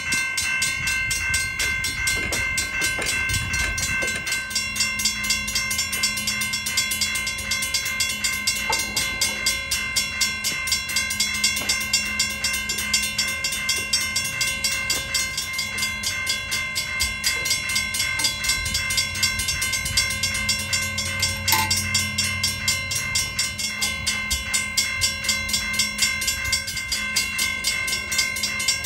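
Railroad crossing warning bell ringing continuously in fast, even strokes, about two to three a second, as a crossing signal does while activated.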